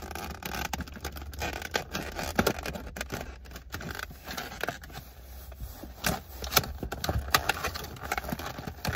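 Rummaging through the contents of a new handgun's case: scattered clicks, knocks and scrapes of plastic and packaging being handled, over a low steady hum.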